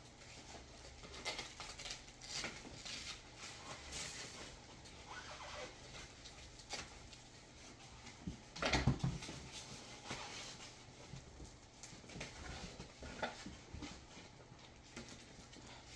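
Small items and packaging being handled: scattered light clicks and rustles, with a louder knock about nine seconds in.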